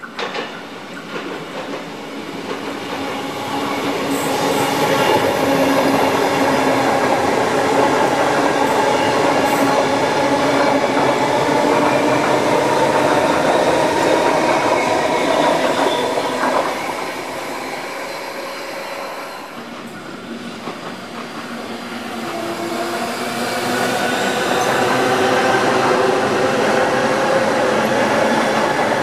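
Two coupled Tangara electric train sets passing close by: a loud steady rumble of wheels on rail with the whine of the electric traction motors. It eases off about two-thirds of the way through, then builds again.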